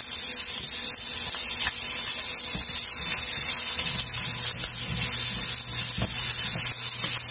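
Chopped onion sizzling in hot clarified butter in a nonstick frying pan, a steady hiss, with a few light taps of a spatula stirring it.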